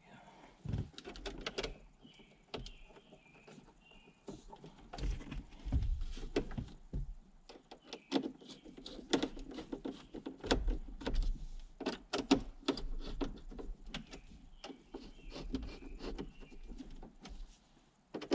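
Irregular clicks, knocks and low thumps of hands handling and fitting parts in a Jeep TJ's dash.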